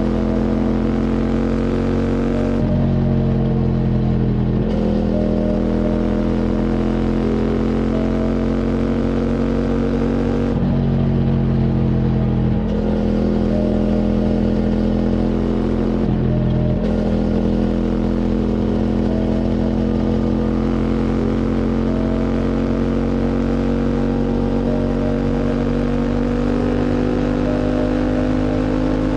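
QJ Motor SVT 650X motorcycle engine with an Arrow Racetech slip-on exhaust, running hard under load with its revs climbing slowly. Three times the throttle is rolled off and the note drops for a second or two before the engine pulls again.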